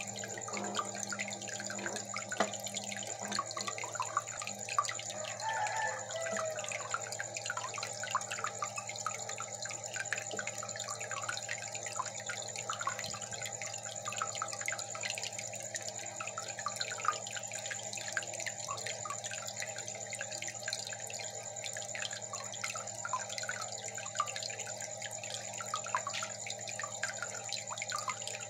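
Aquarium water bubbling and trickling steadily, a dense patter of small splashes over a constant low hum.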